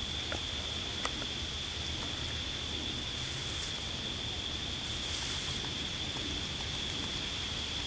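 A steady, unbroken high-pitched insect chorus over a low outdoor hiss, with a single sharp click about a second in and brief soft rustles around the middle and near the end.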